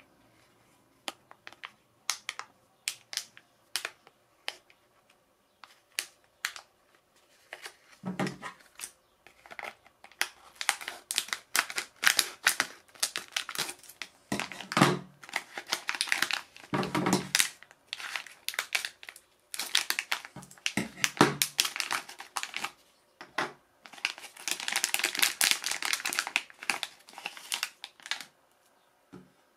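Metallized antistatic plastic bag crinkling and crackling as it is handled and opened. The crackles are sparse at first, then dense and nearly continuous, with a few dull low thumps in between.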